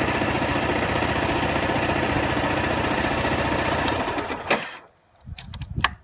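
Yamaha YZF-R125's 125 cc single-cylinder four-stroke engine idling steadily in neutral, then dying away about four and a half seconds in as it is switched off. A few sharp clicks and knocks follow near the end.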